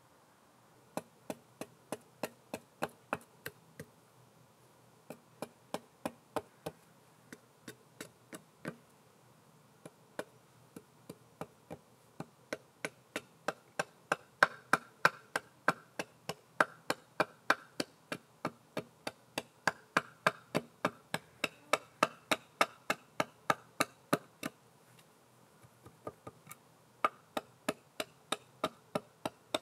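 Hand tool striking wood in runs of sharp taps, about three to four a second, with short pauses between the runs and the strongest strokes in the middle.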